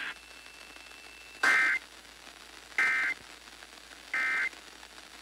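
Emergency Alert System end-of-message code: three short bursts of SAME digital data tone, each about a third of a second long and about a second and a half apart, each a little fainter than the last. It marks the end of the alert broadcast.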